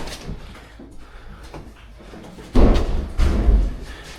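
Two heavy, bass-heavy thumps about half a second apart, the second one longer, after a quieter stretch.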